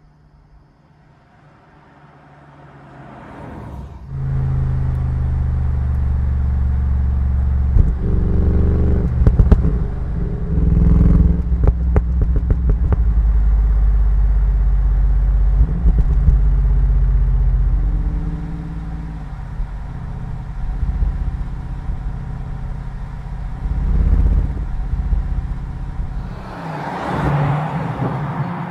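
Bentley Continental GT3-R's twin-turbo V8 with titanium exhaust, driven hard. The engine note fades in over the first few seconds, then comes in loud and steady, with a run of sharp crackles a few seconds later. After the middle it eases off, swelling twice more, the second time with a rush of passing noise near the end.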